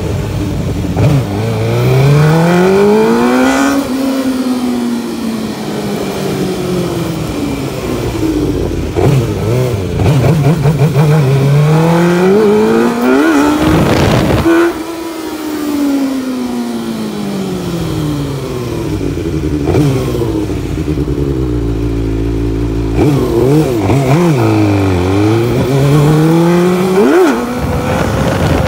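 Suzuki GSX-R600 inline-four engine under way, its pitch climbing and falling in long sweeps as the rider accelerates and rolls off, then holding steady for a few seconds. Near the end it revs up and down several times in quick succession. A short sharp burst of noise comes about fourteen seconds in.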